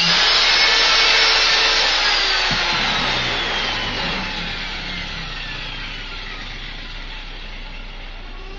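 Makita 4-inch angle grinder with a sanding pad grinding the edge of a steel mower blade, then switched off about two seconds in; its whine falls steadily in pitch as it spins down over several seconds.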